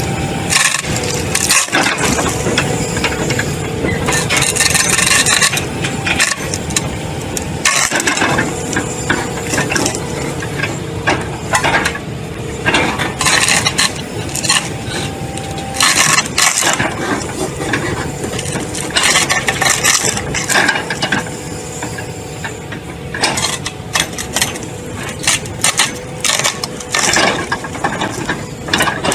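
A heavy engine-driven tree-shredding machine running steadily while it crushes wood, with frequent sharp cracks and crunches of splintering timber over the engine drone.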